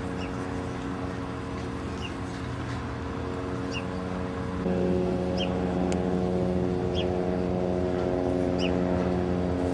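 Steady motor hum holding several pitches, which grows louder about halfway through. A short high chirp repeats about every second and a half over it.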